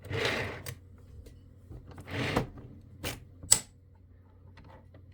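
Small screw and screwdriver being fumbled at a screw hole: two soft scraping rustles, then two sharp clicks.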